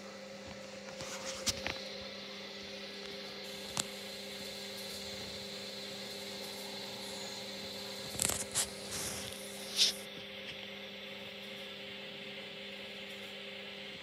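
Hoover Dynamic Next front-loading washing machine running early in a 90 °C cotton wash: a steady motor hum as the drum turns, with a few clicks and knocks. The hum stops near the end.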